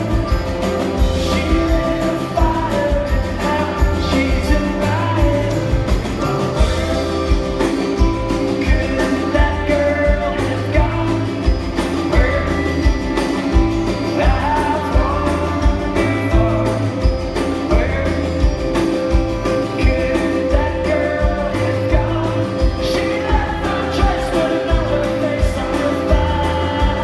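Live band playing a song through a venue PA, heard from the audience floor: a male lead voice singing over strummed acoustic guitar, electric guitars and a steady kick-drum beat.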